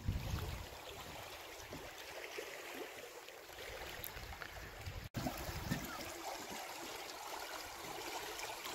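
Steady rush of a small stream's running water, cutting out for an instant about five seconds in. A brief low rumble at the very start.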